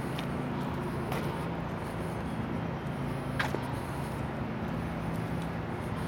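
Steady rumble of distant highway traffic. A few faint, short, sharp sounds stand out over it, the clearest about three and a half seconds in.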